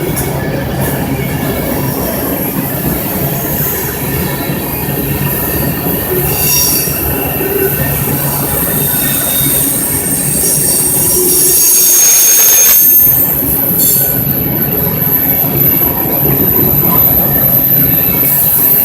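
BNSF freight train's cars rolling past, the wheels rumbling on the rails with a continuous high squeal. The low rumble briefly dips about twelve seconds in.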